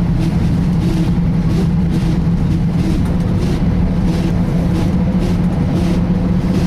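Volvo B10BLE bus heard on board, with a steady low engine drone and a loud rhythmic 'sweeping' swish repeating a little under twice a second. The uploader calls this noise a serious problem and tags it to the Voith gearbox.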